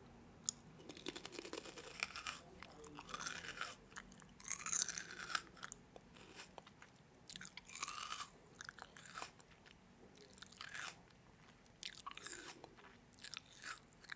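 A person biting and chewing crunchy food close to the microphone, in irregular crisp crunches.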